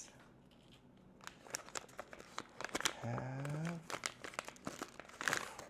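Blind-box figure's sealed wrapper crinkling and tearing as it is handled and pulled open, in scattered crackles with a louder crinkle near the end. A short hum from the unboxer comes about halfway through.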